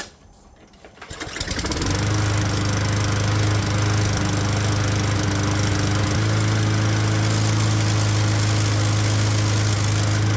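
A Tecumseh 6.5 hp single-cylinder lawn mower engine on a new aftermarket carburetor, started without priming. It catches about a second in and then runs steadily at speed, with a few spits and sputters at first that clear up as it runs.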